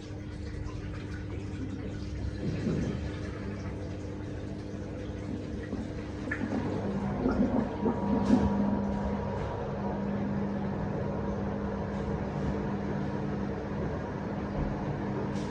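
Beko front-load washer-dryer running a wash cycle: a steady motor hum with water noise, louder for a couple of seconds about halfway through.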